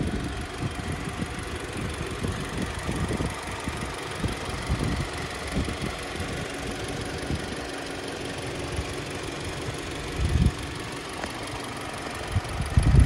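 2015 MINI John Cooper Works' 2.0-litre turbocharged four-cylinder engine idling steadily with the bonnet open. Irregular low buffeting hits the microphone, strongest about ten seconds in and near the end.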